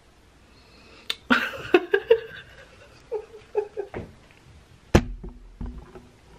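A woman laughing behind her hand in short bursts, a cluster about a second in and a smaller one around three seconds, with one sharp knock near five seconds.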